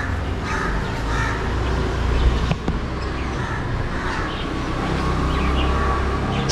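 Birds calling: a crow cawing several times in quick succession early on, then higher short chirps of small birds, over a steady low rumble.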